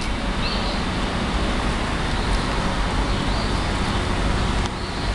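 Steady outdoor background rush with no distinct events.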